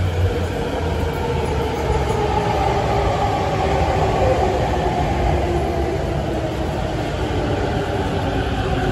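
Tokyo Metro 15000 series electric train running, its Mitsubishi IGBT VVVF inverter and traction motors whining in several steady, slightly wavering tones over rail rumble.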